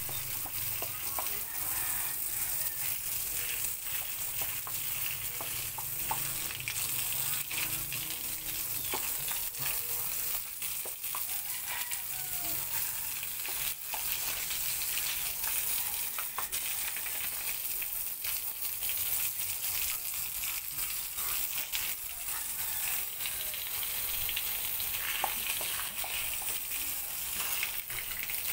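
Garden hose jet, its end pinched under a thumb, spraying and splashing onto concrete and into a dog's mouth as it bites at the stream: a steady hiss with scattered small splats and clicks.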